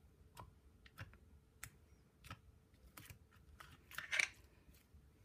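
Orange slime worked by hand out of a plastic tub: faint, scattered sticky clicks and pops, with a longer, louder crackle about four seconds in.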